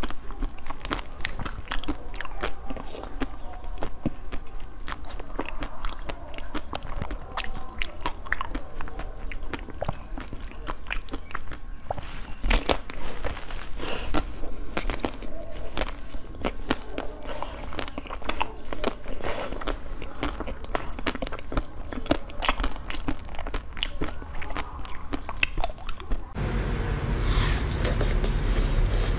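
Close-miked eating: bites and chewing of a soft-crisp food, with many small irregular crunches and mouth clicks. Near the end the sound cuts abruptly to another eating clip, with a low rumble under the chewing.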